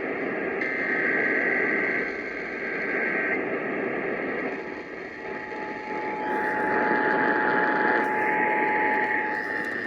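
Emergency Alert System tones received over a radio with heavy static: buzzy digital header bursts that come and go, then a steady alert tone coming in about five seconds in, announcing a monthly EAS test.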